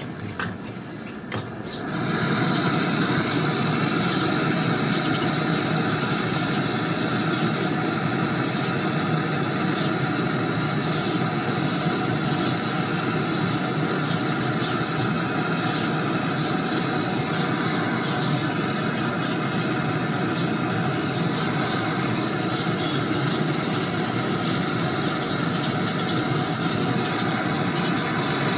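Handheld gas-canister brazing torch flame burning with a steady hiss, starting about two seconds in. The flame is heating copper pipe joints at a freezer compressor for brazing.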